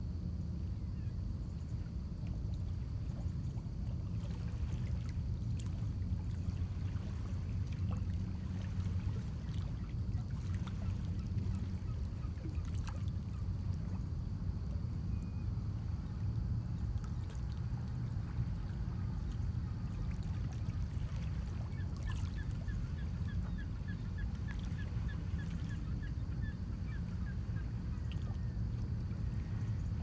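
Small lake waves lapping and trickling against shoreline rocks over a steady low wind rumble. Over the last third a bird calls in a quick series of short, high, repeated notes, about four a second.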